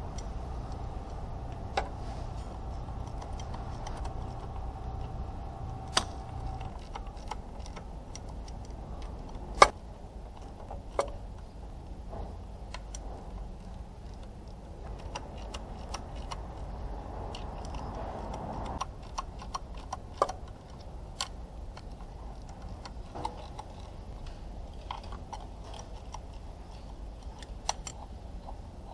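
Scattered sharp clicks and light knocks, a few much louder than the rest, over a steady low hum that stops about six and a half seconds in.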